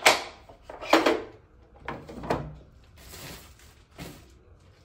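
Extendable bamboo cutlery organizer being handled: hard wooden knocks and clacks about a second apart, one with a short sliding scrape, then a fainter rustle.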